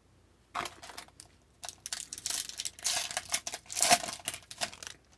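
Foil wrapper of a hockey trading-card pack crinkling and tearing as the pack is ripped open and peeled off the cards. It is a run of irregular crackly rustles starting about half a second in, growing denser and louder in the second half, and loudest near the end.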